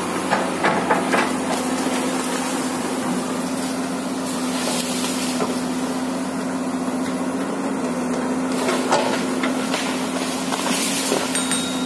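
Komatsu PC200 hydraulic excavator's diesel engine running steadily under working load. Sharp cracks and knocks come now and then as the boom pushes into a tree: a quick cluster about a second in, then a few more later.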